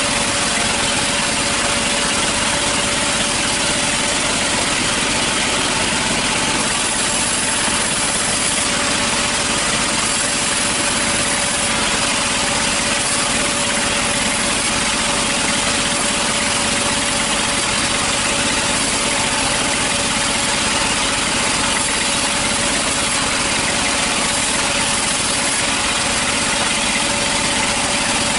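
Sawmill machine running steadily: a constant motor drone with a steady hum over a dense hiss, unbroken throughout.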